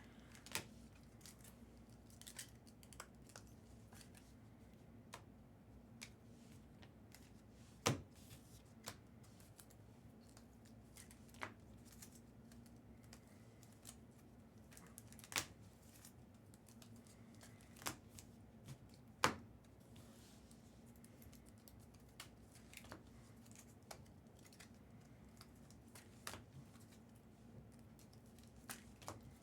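Scattered light clicks and taps of trading cards being handled, a few louder ones about a third and two thirds of the way through, over a faint steady hum.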